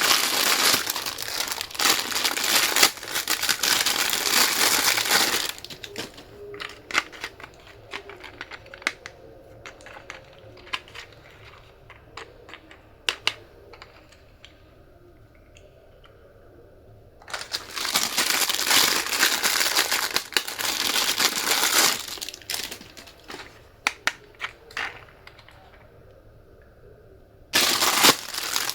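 Handling of small plastic objects: long spells of dense crinkling and crackling, twice giving way to a quieter stretch of scattered light clicks and taps, with the crinkling returning about 17 seconds in and again near the end.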